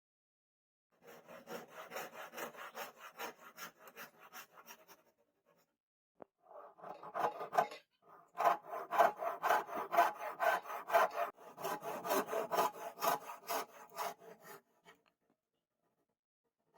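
Hand tool worked back and forth on the knife, rhythmic scraping strokes of the kind made by sawing or filing by hand, about three strokes a second. One run starts about a second in and stops near five seconds; a second, louder run starts about six seconds in and stops near fifteen.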